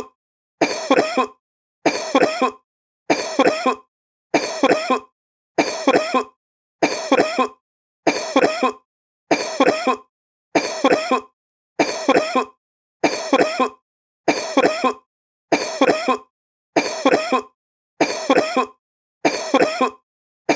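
A sick man coughing in short fits of two or three hacking coughs. The same fit repeats at even spacing about once a second, with a brief silence between fits.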